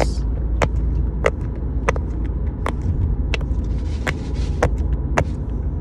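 Silicone pop-it fidget toy being pressed bubble by bubble, about ten sharp pops at roughly two-thirds of a second apart, over a loud, steady low rumble of a car.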